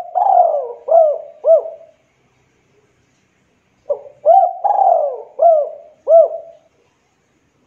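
Spotted dove (Javanese local derkuku) cooing in two phrases. The first ends about two seconds in and the second starts about four seconds in; each is a long falling coo and short arched coos.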